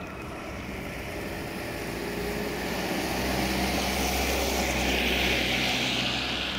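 English Electric Class 40 diesel locomotive running light engine, its V16 diesel giving a steady distant drone that grows louder to a peak about five seconds in, with a hiss building in the later seconds.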